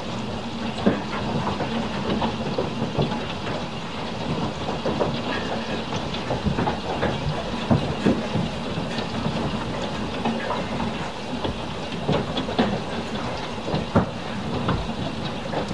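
Hailstorm with heavy rain: a steady wash of rain noise dense with many irregular, sharp knocks of hailstones striking the window, roofs and parked cars.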